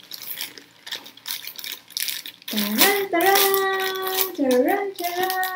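Plastic courier pouch crinkling and rustling as hands work it open. About two and a half seconds in, a woman starts singing a few long held notes with slides between them, louder than the rustling.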